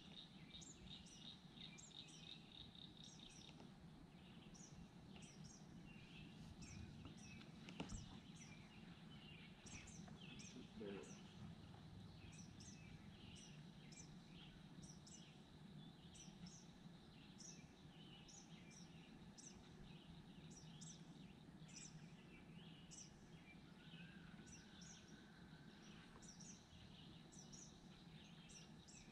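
Faint outdoor quiet with birds chirping, short high calls repeating every half second to a second, and a fast trill in the first few seconds. A single soft knock sounds about eight seconds in.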